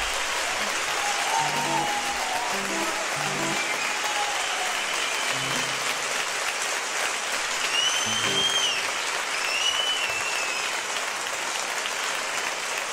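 Concert audience applauding and cheering, with a few shrill whistles from the crowd about eight and nine and a half seconds in. A few low plucked notes sound through it.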